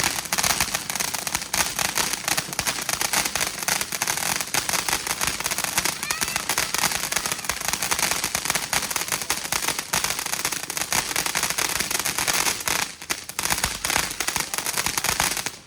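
Consumer fireworks crackling: a dense, rapid, continuous popping that runs for about fifteen seconds and then cuts off suddenly.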